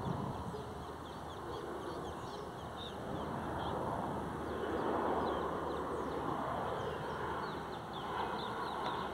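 Distant jet engine noise from a Boeing 737-300's CFM56 turbofans as the airliner comes in on approach: a steady rush that swells a little around the middle. Small birds chirp briefly and repeatedly over it.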